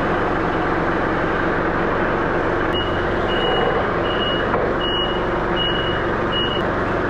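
Forklift engine running steadily. About three seconds in, its reversing alarm sounds six short high beeps, roughly one every two-thirds of a second, as the forklift backs up.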